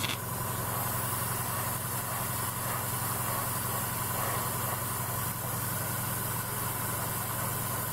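Airbrush spraying a thin coat of gloss varnish onto a plastic scale model: a steady hiss of air and paint that comes on at the start, over the steady hum of the airbrush compressor running.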